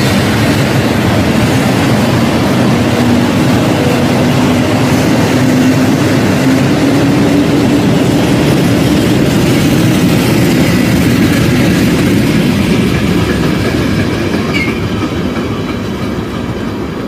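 Freight train wagons rolling past close by, their steel wheels running on the rails with a faint steady whine. The noise starts to fade about fourteen seconds in as the end of the train goes by.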